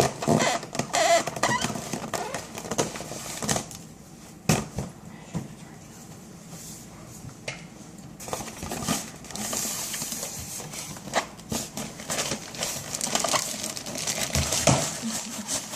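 Styrofoam packing and cardboard being handled, with rustling, scraping and a string of clicks and knocks as the contents are worked out of the box.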